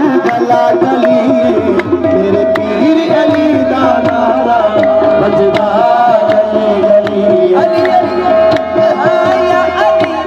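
Live qawwali music: a harmonium holding a steady note under a melodic line, with tabla strokes keeping a quick rhythm and a singer's voice gliding over it.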